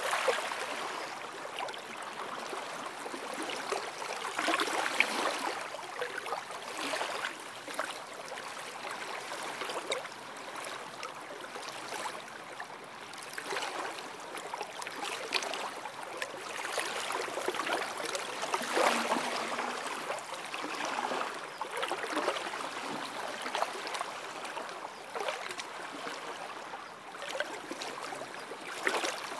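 Small lake waves lapping and washing up a sandy shore, the splashing swelling and easing every couple of seconds.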